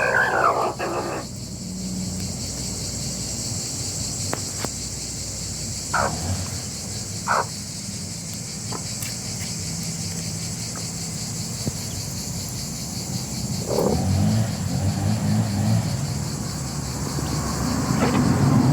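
A steady high chirring of crickets or other insects, with the end of a rooster's crow at the very start and a couple of short chicken calls about six and seven seconds in. A low rumble rises near the end.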